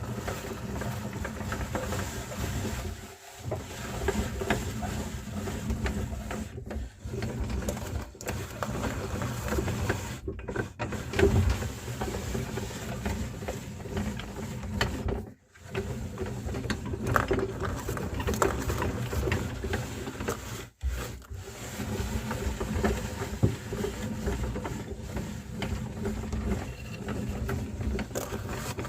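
Meat grinder running steadily as it grinds cookies. Its steady mechanical hum breaks off for a moment several times.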